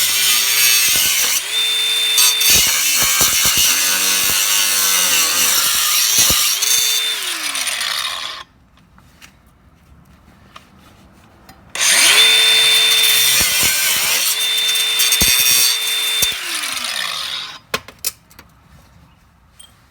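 Power tool cutting away the metal lip at a car's bump-stop mount, its motor whine dipping in pitch each time it bites and winding down when released. It runs for about eight seconds, stops, then cuts again for about five seconds, followed by a few light clicks.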